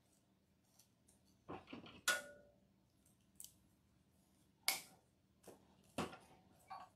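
Handling of artificial floral picks: short rustles and a few sharp clicks and snips, with wire cutters cutting the wired berry stems.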